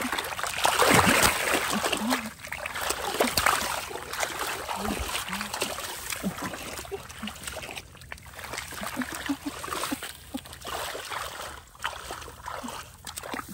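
Splashing and sloshing in shallow muddy water: many short wet slaps and splatters, loudest about a second in.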